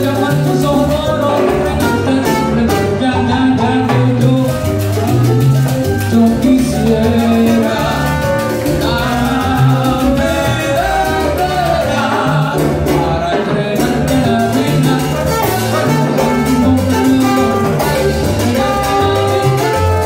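Live salsa band playing at full volume, with congas, timbales, trombone and keyboard over a steady rhythm, and singing.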